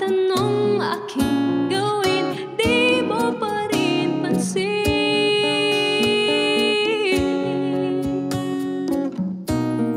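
A woman sings a slow ballad to strummed acoustic guitar, while a cajon keeps a soft beat under hand strikes. About halfway through she holds one long note.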